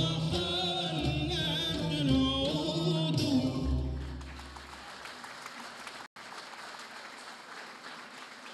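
Arabic ensemble of oud, qanun and violins with a male chorus plays the closing phrase of a Sufi devotional song, ending about four seconds in; audience applause follows, with a brief dropout in the audio partway through.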